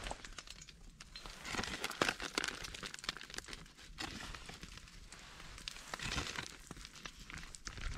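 Wood fire crackling under a cast iron pan, with irregular pops and clicks throughout, while pieces of fat begin to sizzle in the hot pan; the hiss swells about a second and a half in and again around six seconds.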